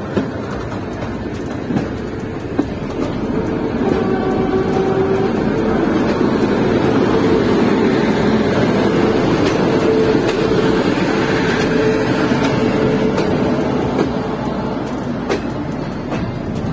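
Passenger train of ICF coaches rolling out of a station yard, heard from aboard: steady wheel and rail rumble that grows louder about three seconds in as it gathers pace. A few sharp clicks of wheels over rail joints come through.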